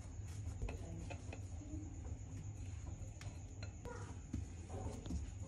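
Hands punching down and kneading soft, risen yeast dough, moving it from a glass bowl onto a silicone mat: quiet squishing and a few small taps and clicks, over a steady low hum and a faint high tone.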